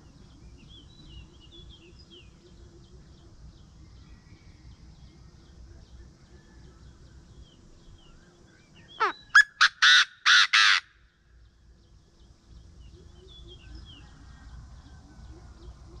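A Chinese francolin giving one loud call about nine seconds in: a short sweeping note followed by a quick run of about five loud notes, over in under two seconds. Small birds chirp faintly around it.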